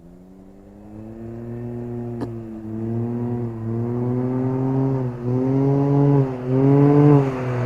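Can-Am Ryker Rally's Rotax 900 ACE three-cylinder engine running through a Treal Performance aftermarket exhaust as the trike approaches under throttle, growing steadily louder. The engine note dips briefly twice in the second half as the throttle eases and comes back on.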